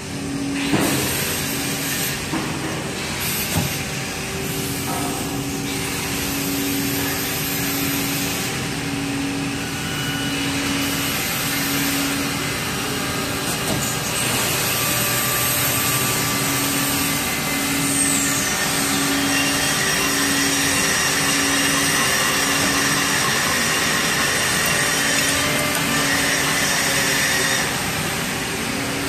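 Hydraulic guided-bend test press running, a steady machine hum and hiss with a low tone that pulses on and off about once a second, as its ram bends a welded pipe test coupon.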